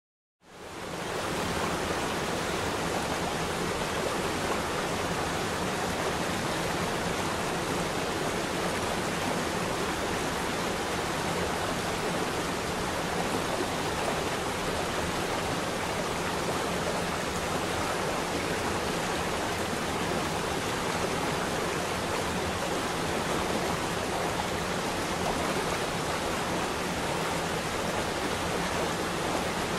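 Steady rush of running water, even and unbroken, fading in over the first second.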